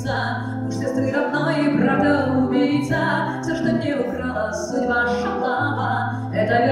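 Live female singing with amplified guitar accompaniment. Low bass notes change about once a second under the melody.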